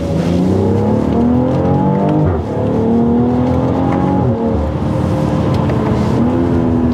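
BMW X3 M40i's B58 twin-turbo straight-six accelerating hard, heard from inside the cabin. The engine note climbs steadily in pitch and drops sharply about two and four seconds in as the gearbox changes up, then climbs again.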